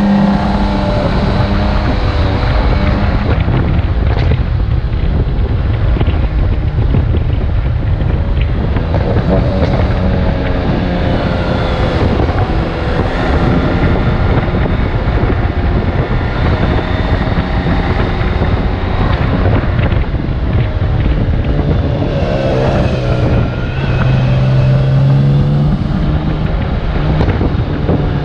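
BMW K1600GTL motorcycle's inline-six engine running under way, its note rising and falling a few times with the throttle, with wind rushing over the microphone.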